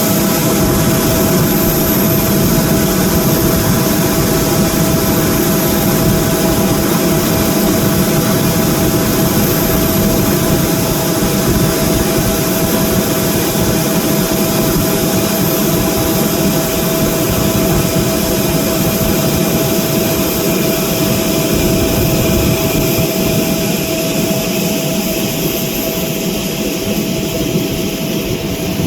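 Boeing 767 freighter's jet engines running: a steady whine of several held tones over a broad rush, easing slightly near the end.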